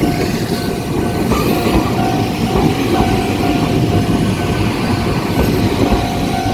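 Ohmi Railway 800/820-series electric train running past with a steady low rumble. A thin high tone sounds over it, breaking off and returning several times.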